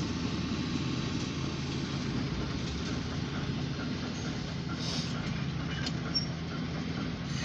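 Diesel locomotive engine running steadily.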